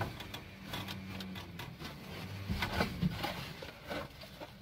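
Handling noise: plastic bags rustling and irregular clicks and knocks as gloved hands lift out a white plastic bathroom scale.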